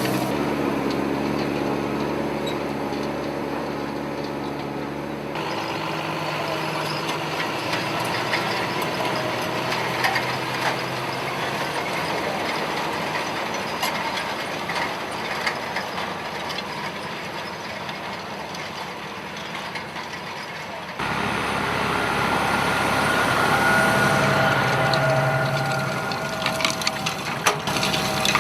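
Farm machinery running: a steady engine sound with mechanical clatter, which changes abruptly twice, about five seconds in and again about twenty-one seconds in.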